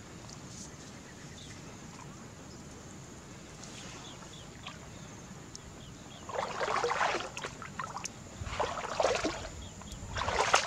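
Three bursts of rustling and scraping as a fish is pulled out of a woven bamboo fish trap by hand. They come in the second half, after a steady faint outdoor background.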